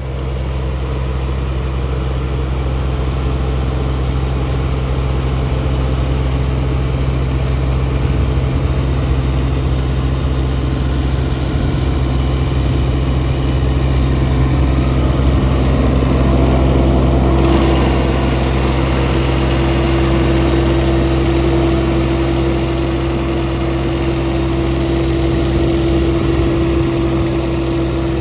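Kubota U17-3a mini excavator's three-cylinder diesel engine running steadily at idle. About two-thirds of the way through, a steady higher-pitched whine joins in over the engine note.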